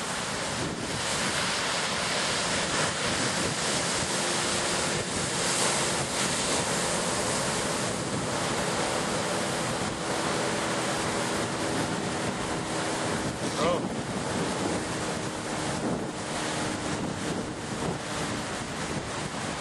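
Wind buffeting the microphone over the steady wash of the open sea.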